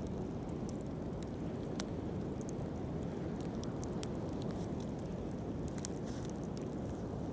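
Wood bonfire burning, with irregular small crackles and pops over a steady low rush.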